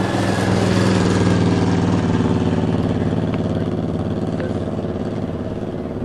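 A motor vehicle's engine running close by with a steady hum. It grows louder about a second in, then slowly fades.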